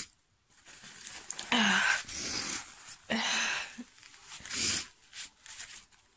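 A woman breathing out hard through her mouth in several noisy, sighing breaths about a second apart, one of them voiced, from the burn of a very spicy curry.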